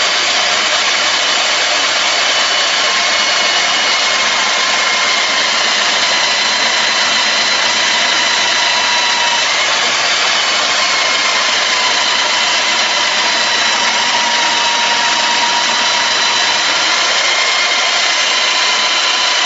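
Electric diamond core drill on a rig stand running steadily with a high motor whine, its pitch drifting slightly with load as the diamond core bit is fed into a reinforced concrete slab.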